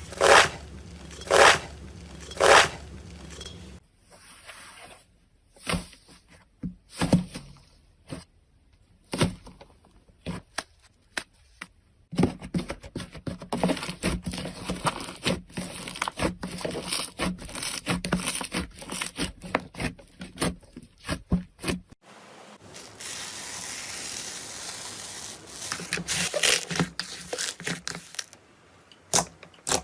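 Slime being squeezed and stretched by hand, with many sharp pops and crackles, changing character at about 4, 12 and 22 seconds in.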